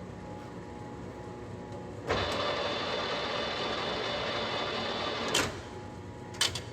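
Clausing 15-inch by 50-inch engine lathe running steadily with a hum and whine. About two seconds in it gets louder for some three seconds, then drops back after a sharp clunk, and another clunk comes near the end.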